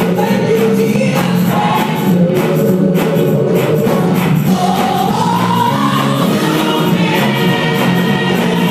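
Gospel choir singing live through a PA, with a lead voice sliding up in pitch midway, over a steady beat of hand claps and foot stomps.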